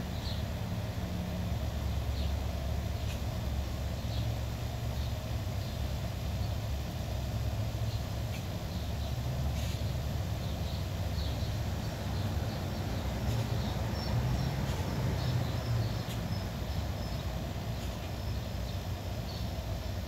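Outdoor ambience: a steady low rumble with faint, scattered bird chirps that come more often in the second half.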